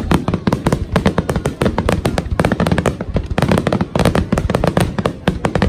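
Aerial fireworks shells bursting in a dense, continuous barrage, many sharp bangs a second.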